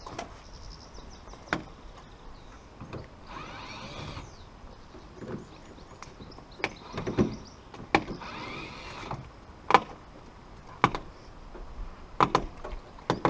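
Scattered clicks and knocks of hand tools and metal parts being handled, with two scraping or rasping sounds about a second long, roughly three and eight seconds in.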